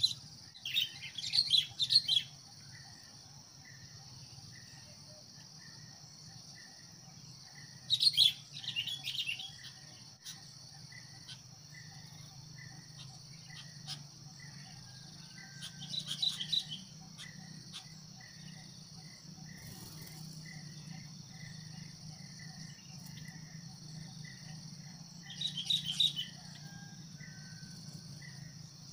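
Sooty-headed bulbul (kutilang) giving short bursts of calls four times, several seconds apart, over a steady high insect drone and a regularly repeating cricket chirp.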